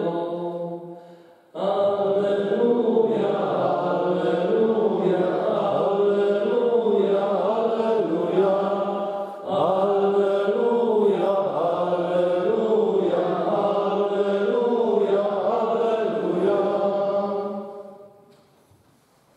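Men's voices singing a liturgical church chant in two long phrases with a short breath between them, ending a couple of seconds before the end.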